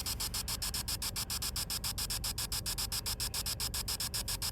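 Radio static chopped into a fast, even pulse, roughly nine beats a second: a spirit box sweeping rapidly through radio stations.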